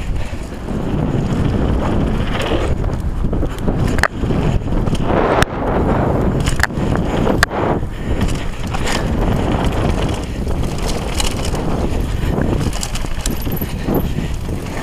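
Downhill mountain bike riding on a dry dirt and gravel trail, heard from a camera on the bike or rider: a steady loud rush of tyres on loose dirt and wind on the microphone, with the bike rattling over bumps and a few sharp knocks.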